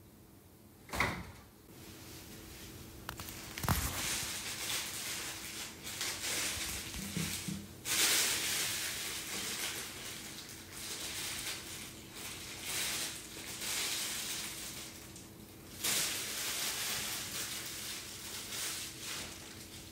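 A clear plastic blister tray knocked twice as it is handled, then a long crinkling rustle of thin plastic bags being pulled off a PVC figure and its parts, loudest about 8 seconds in and again near 16 seconds.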